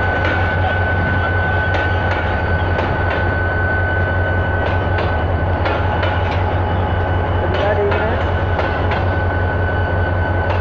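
Pakistan Railways passenger coaches rolling past a platform, their wheels clacking over rail joints in pairs of clicks about a third of a second apart. Under it runs a steady rumble and a thin, steady high whine.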